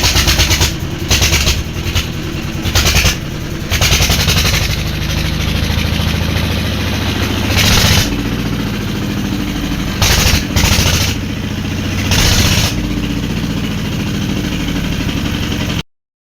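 Old diesel engine running with a fast, even chugging, rising in several short loud bursts as it is revved. The sound cuts off suddenly near the end.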